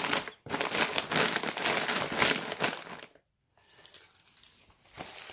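Crinkly snack packaging being handled. A dense crinkling for about three seconds, a brief dead gap, then fainter rustling.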